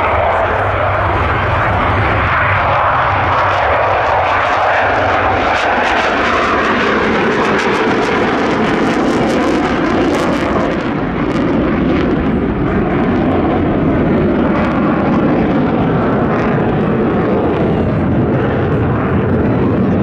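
Sukhoi Su-22M4's Lyulka AL-21F-3 jet engine at takeoff power as the jet lifts off and climbs steeply away: a loud continuous roar with crackling in the middle, turning deeper in the second half.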